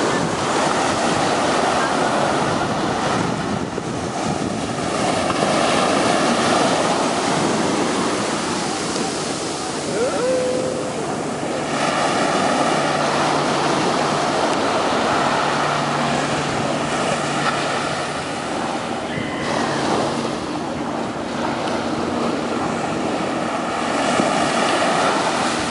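Ocean surf washing onto the shore: a steady rush of small breaking waves that swells and eases. A faint low hum comes in about halfway through and fades out a few seconds later.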